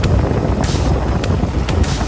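Vehicle engine and wind noise from off-road riding, mixed with background music that carries a beat of sharp hissy hits.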